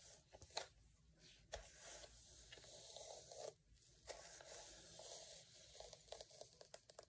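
Faint, repeated scraping strokes of a Denman brush dragged through wet, gel-coated curly hair, with a few soft clicks.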